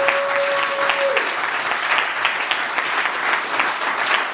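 Audience applauding steadily, with one voice holding a long cheer that ends about a second in.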